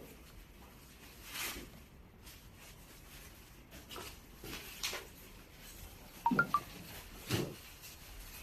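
Light knocks and clicks of plastic and metal parts being handled and fitted while the water bike's steering bar is installed, scattered a second or two apart, with a few short squeaks about six seconds in.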